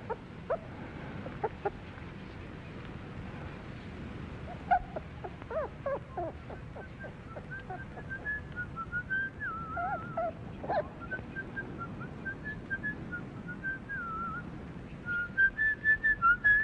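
A young animal gives a run of short, high cries, and a trilling, warbling whistle comes in over them and carries on, loudest near the end.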